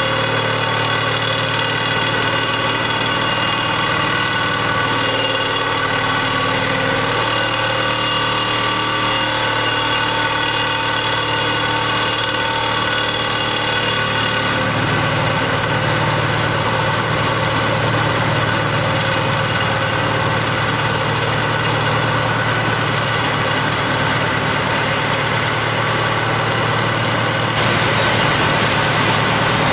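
Vibratory hammer on an RTG RG19T piling rig driving a steel sheet pile, running as a steady drone together with the rig's engine; the pile goes in easily. About halfway the higher tones drop away, and near the end a high whine comes in and the sound gets a little louder.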